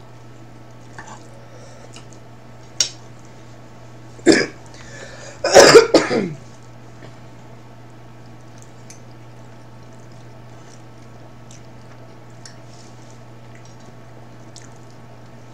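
A woman's cough about four seconds in, followed by a louder, longer bout of coughing and throat clearing. A few light clinks of a fork on a plate and a steady low hum sit beneath it.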